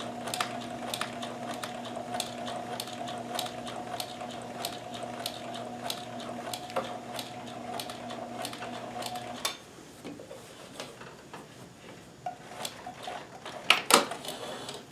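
Kenmore 158.1914 sewing machine with a walking foot sewing slowly: a steady motor hum with even, rhythmic clicking of the needle and walking-foot mechanism. It stops about two-thirds of the way through, followed by a few scattered handling clicks and a sharp clack near the end.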